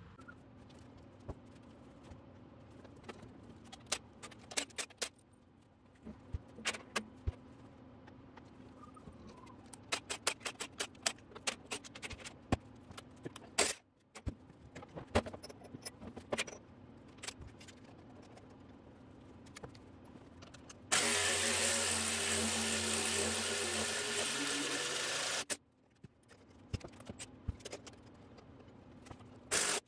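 Steel hand tools and engine parts clinking and clattering against a small-block Chevy engine block and its steel cart. About two-thirds of the way through, a loud steady rushing noise with a faint high whistle runs for about four and a half seconds, then cuts off suddenly.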